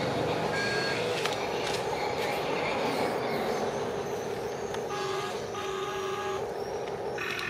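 Steady motor running, with two horn toots about five seconds in: the first short, the second longer.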